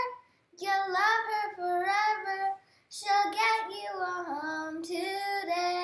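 A high voice singing a short unaccompanied jingle, in two phrases of held, gliding notes.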